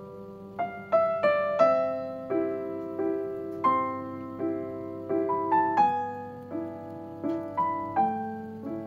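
Background music: a solo piano playing slowly, with single struck notes ringing out and fading, a few notes a second.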